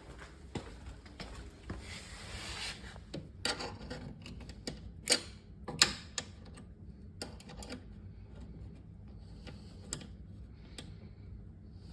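A small flat-head screwdriver prying at the axle pin of a refrigerator roller wheel assembly: irregular clicks, taps and scrapes, with two sharper clicks around the middle.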